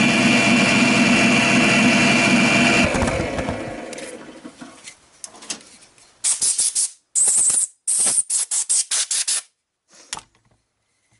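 Bench drill press motor running steadily, then switched off about three seconds in and winding down. A few seconds later comes a rapid string of short blasts from a compressed-air blow gun clearing drill shavings off the wooden hull.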